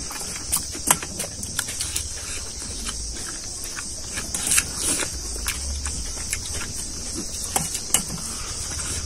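Close-up eating sounds: chewing, lip smacks, and fingers mixing rice and curry against steel plates, heard as scattered short clicks and smacks. Under them runs a steady high-pitched insect chorus.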